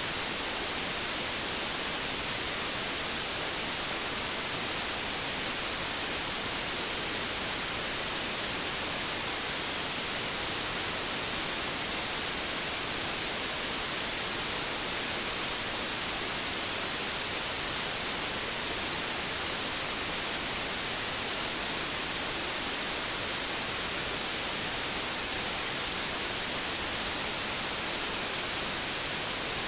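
Steady white noise: an even, unchanging hiss, brightest in the high range.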